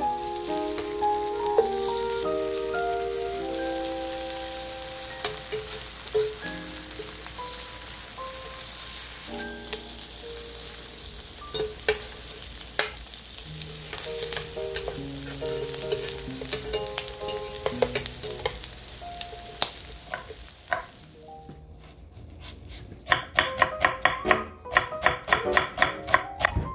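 Enoki mushroom and shrimp pancakes sizzling in oil in a nonstick frying pan, with light clicks of a spatula and tongs against the pan. Near the end the sizzling stops and a knife chops onion on a wooden cutting board in quick, even strokes, about three a second.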